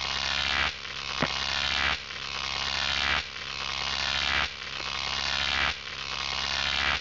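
Electronic intro sound effect: a buzzing, hissy sweep that swells and drops back about every second and a quarter over a steady low hum, with one sharp click a little after one second in.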